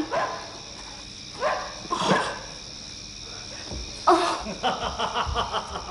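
A dog yelps a few times, short pitched cries: the dog that has eaten the poisoned meat. Then, about four and a half seconds in, quick even footsteps patter across a wooden floor.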